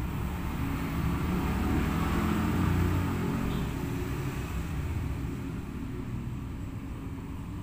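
A steady low rumble that swells about two to three seconds in and then eases off.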